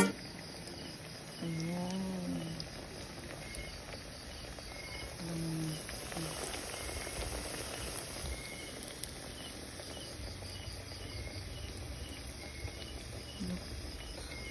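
Crickets chirping in short, evenly spaced pulses over a steady high insect trill, with a couple of brief faint low murmurs about two and five seconds in.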